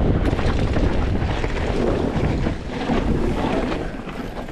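Mountain bike descending a rough trail: heavy wind buffeting on the action camera's microphone over the rumble and rattle of tyres and frame on rough ground, easing somewhat in the second half.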